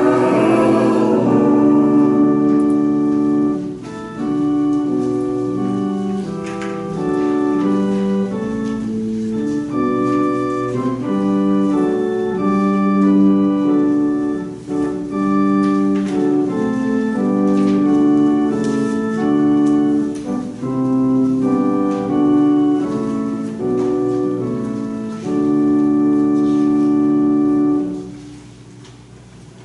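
Church organ playing slow, held chords that change every second or so, stopping a little before the end.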